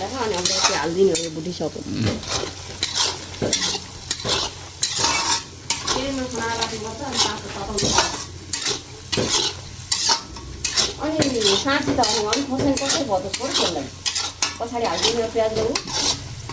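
Goat meat sizzling as it fries in a pan, nearly done, with a metal spoon stirring and scraping against the pan in many quick, irregular strokes.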